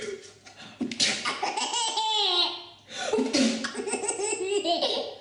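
Baby laughing hard in two long bouts, the first starting about a second in and the second starting near three seconds.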